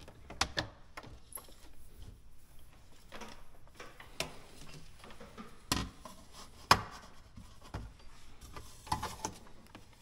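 Hard plastic knocking, clicking and rubbing as a refrigerator water filter head and its plastic cover are handled and pushed into place, with one sharper knock about two-thirds of the way through.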